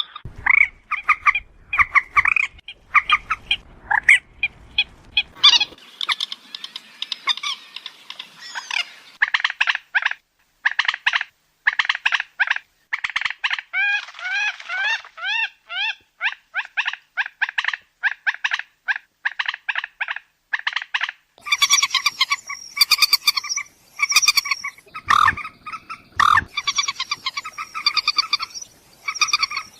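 Moorhen calling: long runs of short, clipped notes, several a second, in bouts with brief gaps, including a stretch of quick upward-sliding notes about halfway through. The sound changes abruptly twice, like spliced recordings.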